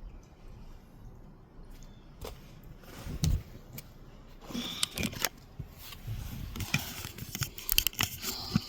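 Snow being scraped and crunched, with scattered sharp knocks, and short scraping bursts that come thicker in the second half.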